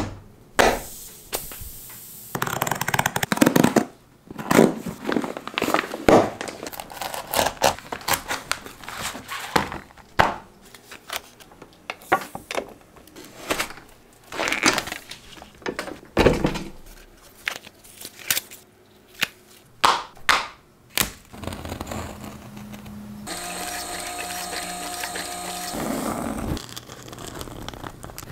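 A run of leatherworking handling noises: knocks, scrapes, crinkles and cuts as leather and tools are worked by hand, with one heavier low thud partway through. Near the end a steady mechanical hum with a few even tones runs for about three seconds.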